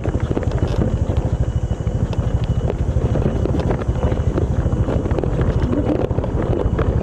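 Motorcycle engine running steadily as the bike is ridden, with a rapid low pulsing throughout and wind noise on the microphone.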